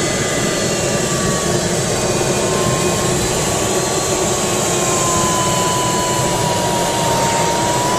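Steady rush of air over a glider's canopy in flight, with a variometer's electronic tone sliding slowly lower and then rising again near the end.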